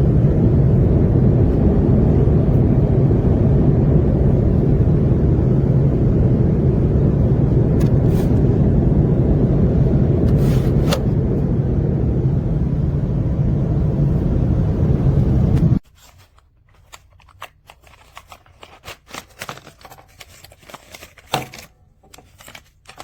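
Steady loud low drone of an airliner cabin in flight, which cuts off abruptly about sixteen seconds in. It is followed by faint, scattered clicks and rustles of something being handled.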